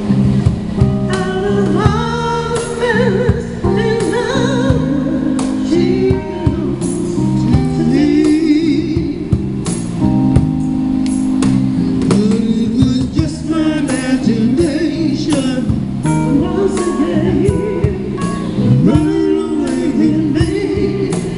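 Live band playing a classic soul tune, with electric keyboard, a steady beat and singing voices.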